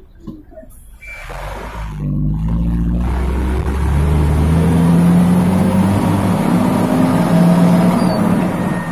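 Old Mitsubishi Fuso truck's diesel engine heard from inside the cab, pulling under a heavy load of sand. After a quieter first second, it builds and its note climbs slowly as it revs up, easing off right at the end.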